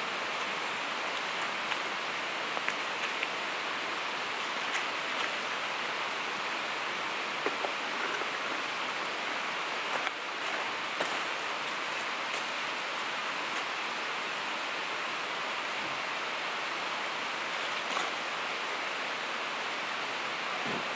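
Steady rushing of flowing river water, even and unbroken, with a few faint clicks scattered through it.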